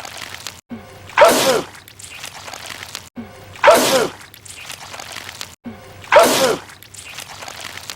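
A man sneezing, the same sneeze looped: three identical loud sneezes about two and a half seconds apart, each a sharp burst with a falling voiced tail.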